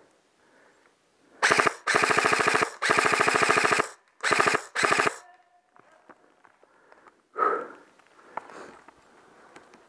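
Airsoft rifle firing on full auto in five rapid bursts, the longest about a second each, with short gaps between them.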